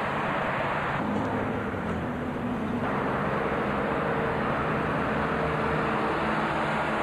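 Road traffic: cars passing close by with a steady hiss of tyres on the road and a low engine hum.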